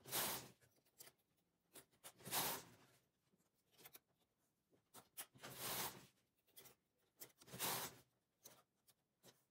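Brief rustling scrapes of hands working knitted fabric on a midgauge knitting machine's needle bed. They come four times, about two seconds apart.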